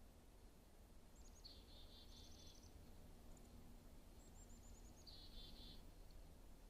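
A small songbird singing two short, faint phrases about three seconds apart, each a few quick high notes followed by a rapid, slightly lower trill, over a steady low background rumble.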